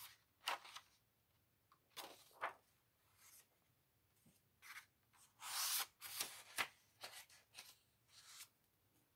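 Faint rustles of paper pages being turned and smoothed flat by hand in a hardcover picture book, with soft rubbing of hands on the paper. The rustles come as several short, separate bursts, the longest a little over halfway through.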